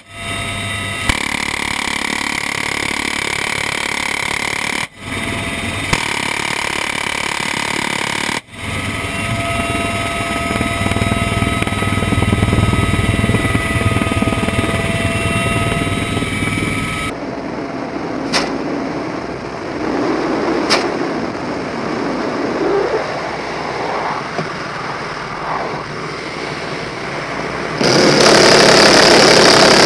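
Cabin noise of a UH-1Y Venom helicopter in flight: the steady drone of its twin turboshafts and rotor with several held whining tones, broken by two brief dropouts. Near the end a much louder, dense burst starts: the door-mounted GAU-17 minigun firing.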